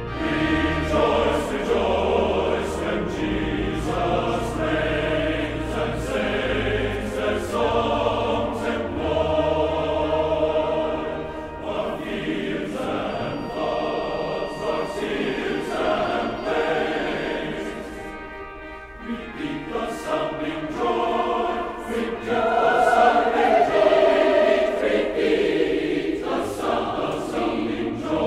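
Choral music: a choir singing over a steady low accompaniment.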